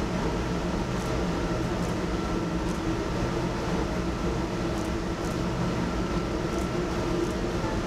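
Crematorium furnace running with a steady mechanical hum and drone, with a faint high whine and a few light clicks.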